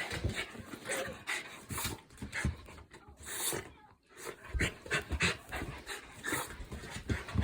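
West Highland White Terrier panting quickly in short breaths, about three a second, with a brief pause about four seconds in.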